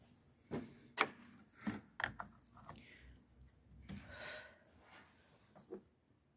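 Scattered light knocks and clicks of tools and parts being handled during car repair work, the sharpest about a second in, with a brief scraping rustle a little past the middle.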